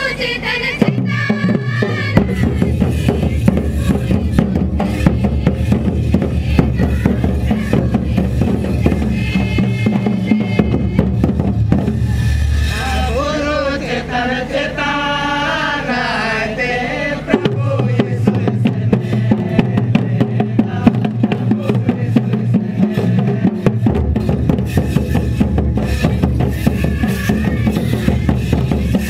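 Live folk dance music: a steady drum rhythm with group singing over it, the voices strongest at the start and again for a few seconds around the middle.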